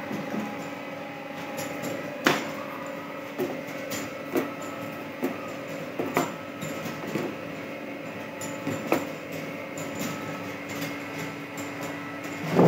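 Mini heat shrink tunnel running with a steady motor hum, broken by a dozen or so short, light knocks and clicks.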